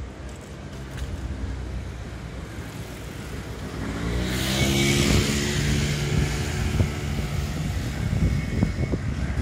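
A motor vehicle drives past close by. Its engine hum and tyre hiss build from about three and a half seconds in and are loudest around the middle, and the engine hum carries on to the end.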